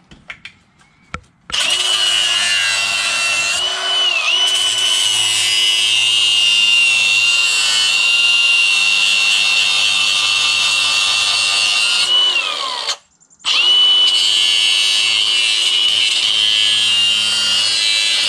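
Handheld grinder with a cutting wheel starting up about a second and a half in and cutting steel under a car floor: a steady high whine that dips briefly under load twice. Around twelve seconds in it winds down and stops, then starts again a second later. It is cutting out seized seat-mounting bolts.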